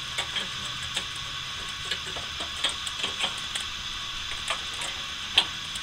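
Stainless steel grill tongs clicking and tapping irregularly as they handle a rack of ribs on a charcoal grill's metal grate, with a sharper clack about five seconds in, over a steady hiss.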